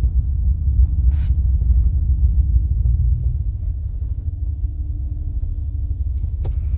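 Low, steady rumble of a vehicle driving slowly on a dirt road, heard from inside the cab: engine and tyre noise. A brief hiss about a second in.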